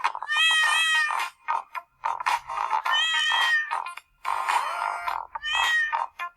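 A cat's meows cut up and set to the beat of an electronic dance track, with three long meows standing out over rapid chopped sound fragments.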